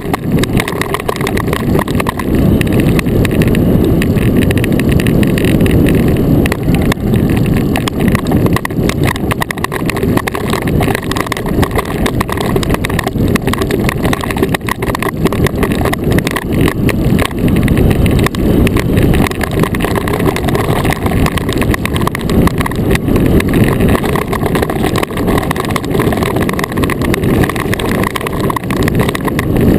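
Iceboat's steel runners rumbling and hissing over lake ice at speed, a steady loud noise with frequent small crackles running through it, with wind on the microphone.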